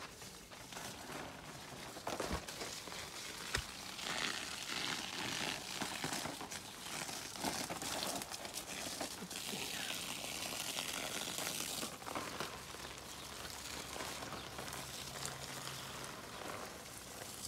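Water from a garden hose splashing onto soil and foliage: a steady hiss that grows louder in the middle, with a couple of sharp knocks in the first few seconds.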